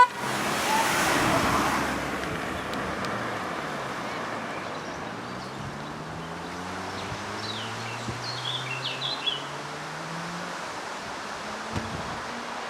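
A vehicle engine rising slowly in pitch as it gathers speed, over steady wind and road noise, with faint high chirps near the middle.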